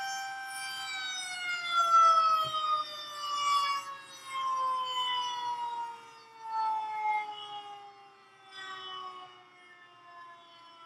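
Federal Signal Model 2001 rotating tornado siren winding down at the end of a test. A steady high tone begins falling slowly in pitch about a second in and keeps dropping, its loudness swelling and fading about every two seconds as the rotating horn sweeps past.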